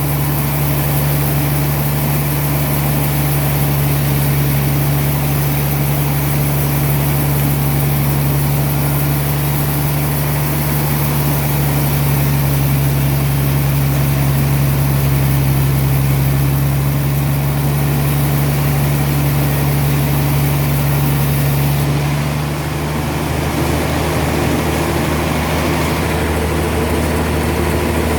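Sawmill machinery running steadily with a deep, even engine-like hum. About three quarters of the way through, the sound shifts to a slightly different steady drone.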